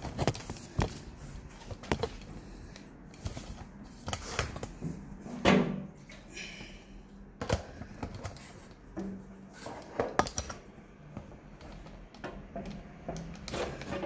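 Irregular clicks, knocks and rustling from handling and light work in a small room, with no engine or other machine running.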